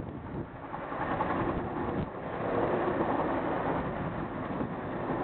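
Boeing CH-47 Chinook tandem-rotor helicopter passing overhead, its rotors and turbine engines making a steady, low-heavy noise that grows a little louder partway through, with wind on the microphone.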